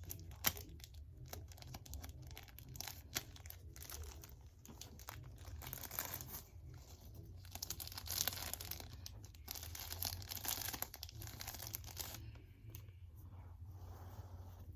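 Dry crunchy debris and paper confetti being crinkled and crushed, an uneven run of crackles and rustles that is busiest in the middle, over a faint low hum.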